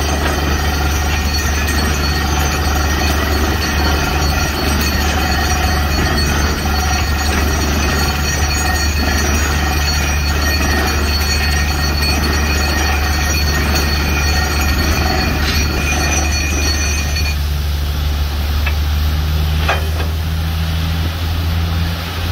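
DTH borewell drilling rig and its air compressor running: a loud steady heavy drone with a high metallic whine over it. A little past three-quarters of the way through, the high whine drops away and the drone carries on.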